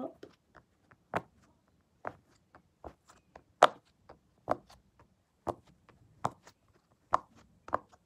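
A hard, non-elastic plastic pop-it fidget having its silicone bubbles pressed through one at a time by fingers, each giving a sharp pop, about nine pops at roughly one a second.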